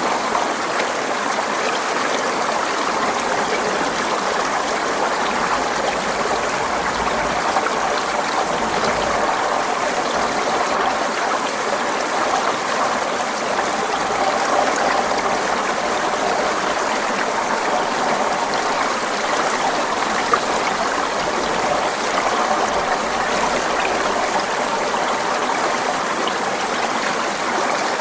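Forest stream flowing: a steady, continuous burble of water running over rocks.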